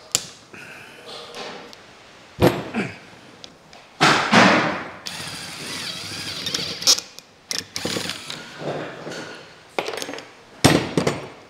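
Cordless drill boring into a Land Rover TD5 clutch fork, running for about three seconds from about four seconds in. Metal parts knock and clatter on the wooden workbench before and after.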